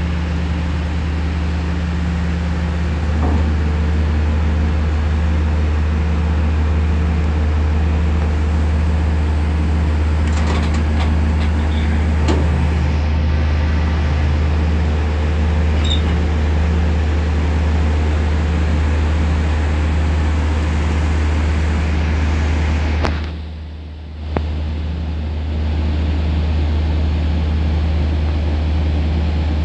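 Boat engine running close by: a steady, loud, low drone with a constant hum above it. It drops away for about a second about three-quarters of the way through, then comes back.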